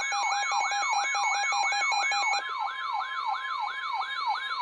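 NOAA Weather Radio alert: a steady warning alarm tone near 1 kHz, overlaid by a receiver's electronic siren that sweeps down in pitch about four times a second. A second steady tone cuts out about halfway through. The alarm signals that a warning broadcast is about to follow.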